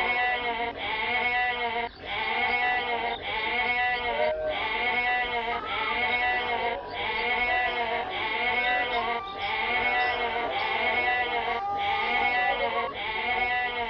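Goat bleating over and over in a steady, unbroken string of calls, each rising and falling in pitch, with a short break a little more than once a second.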